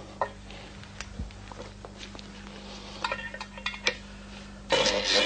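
A few light clicks and clinks over a low steady hum. About four and a half seconds in, a motor starts abruptly and runs loudly and steadily, spinning the heavy 13-inch gyroscope wheel up toward 2,500 rpm.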